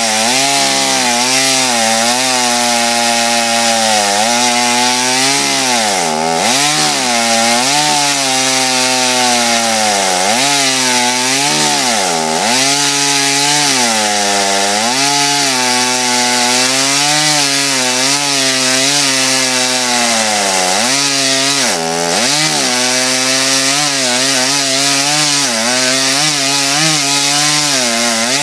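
Small 49cc two-stroke chainsaw running at high revs while cutting into a log, its pitch sagging and recovering several times as the chain bites into the wood under load.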